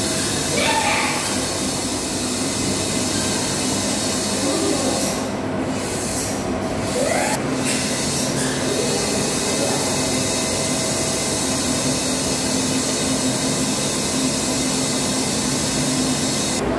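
Steady machine noise: an even rushing hiss with a low steady hum under it.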